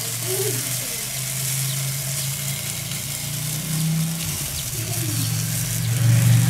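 Glaze and fat dripping off a bacon bomb onto the hot charcoal of a kettle grill with no drip pan, sizzling with faint crackles while it is brushed with glaze. Under it runs a steady low hum that grows louder near the end.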